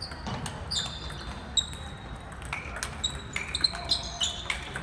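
Table tennis rally: a celluloid ball clicking off paddles and the table several times a second, each hit a sharp click, many with a brief high ping, echoing in a large gym hall.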